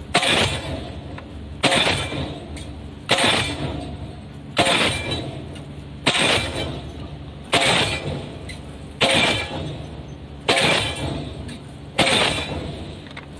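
Diesel pile hammer driving a pile: a loud, sharp strike about every one and a half seconds, each one ringing out and dying away before the next.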